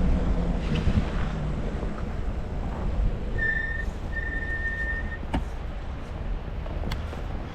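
Wind buffeting the microphone while riding an e-bike through snow, a steady low rumble. About three seconds in come two short, high whistle-like tones, the second longer, followed by a couple of sharp clicks.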